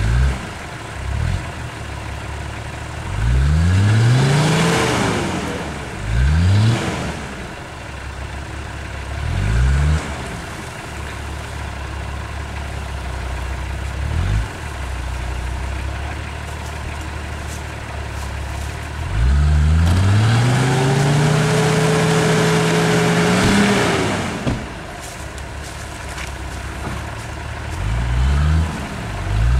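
Off-road 4x4's engine revving in short bursts and dropping back to idle, with one long rev held high for about five seconds past the middle and a couple of quick blips near the end.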